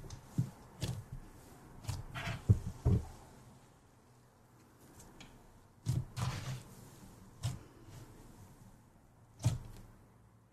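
Fingers poking, pressing and tearing into a thick, grainy slime: irregular soft squishes and thuds with crackly tearing, busiest in the first three seconds, then a few more spaced out.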